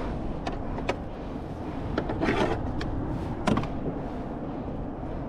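Scattered sharp clicks and knocks of fishing gear being handled on a small boat's deck, with a short rustle or two, over a steady low rush of wind and water.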